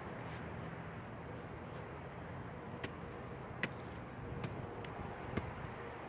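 A small metal hand trowel digging into hard, dry soil, with a few sharp clicks and scrapes as the blade strikes dirt clumps in the second half.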